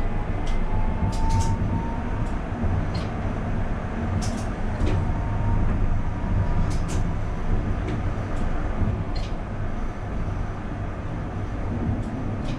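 Bordeaux line A Alstom Citadis tram running, heard from inside the driver's cab: a steady low rumble with irregular short clicks and ticks.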